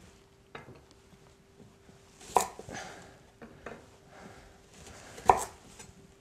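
Knife chopping pumpkin into chunks on a cutting board: separate sharp knocks as the blade goes through and hits the board, the loudest about two and a half and five seconds in, with softer cuts between.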